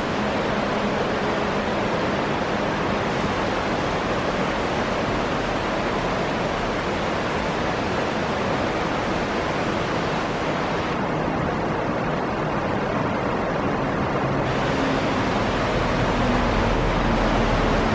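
Ryusei-no-taki waterfall pouring in a steady rush of falling water.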